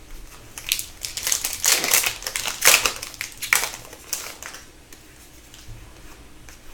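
Crinkling of a foil hockey-card pack wrapper being handled, a run of crackles about a second in that fades out over the next few seconds.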